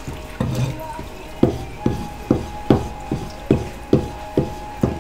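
Kitchen knife slicing through sea squirt flesh and knocking on a plastic cutting board, a steady run of cuts about two and a half a second.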